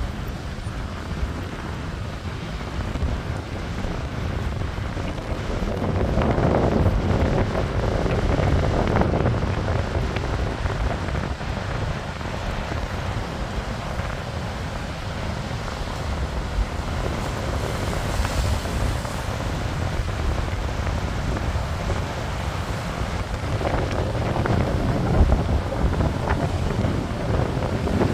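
Storm wind buffeting the microphone over the rush of a rough, foaming sea breaking on the shore, with louder surges a few times.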